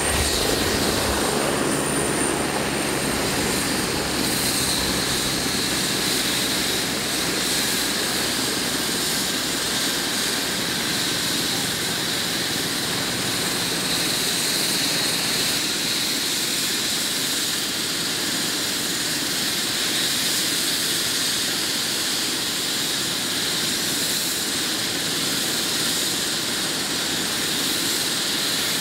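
Air-ambulance helicopter running on the ground with its rotor turning: a steady high turbine whine over a constant rushing noise.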